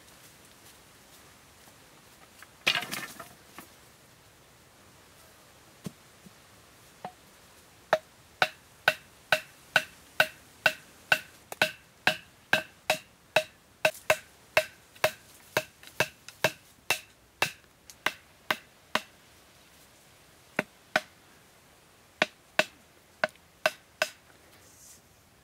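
Wooden stakes being pounded into the ground with a length of wood: a steady run of hollow, ringing knocks about two a second, then a handful more spaced-out knocks near the end. A short rustling crash comes about three seconds in.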